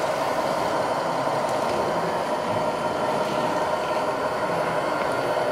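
Steady mechanical hum and whine from the radio-controlled scale Cat 980 wheel loader's motors as the model drives and works, holding an even pitch throughout.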